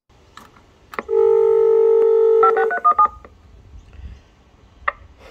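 Railway station help-point intercom: a click as the green information button is pressed, then a steady telephone-style tone for about a second and a half, followed by a quick run of dialing beeps as the unit calls the automated next-train information line.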